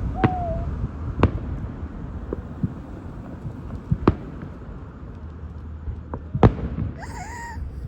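Fireworks show: about half a dozen sharp bangs of shells bursting, spaced irregularly a second or two apart, over a steady low rumble.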